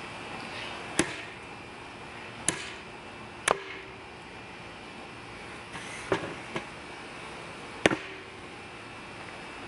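Thick 80CrV2 steel chopper knife chopping into a wooden board: five sharp blade strikes into the wood, a second or more apart, with two lighter knocks just after the fourth; the last strike is the loudest.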